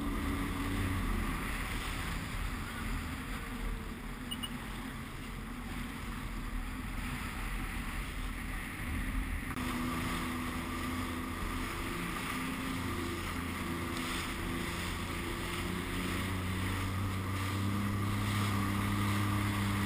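Sea-Doo RXT 260iS jet ski with its supercharged Rotax engine, running slowly over choppy water with a splashing wash. About halfway through it is throttled up: the engine note steps higher and grows louder as it gets under way, with wind on the microphone.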